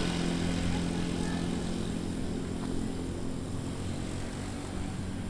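A motor vehicle's engine passing by: a steady low hum that slowly fades as it moves away.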